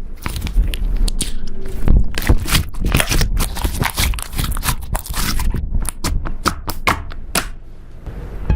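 Slime being worked by hand: a dense, irregular run of sticky clicks, pops and squelches as it is kneaded and stretched.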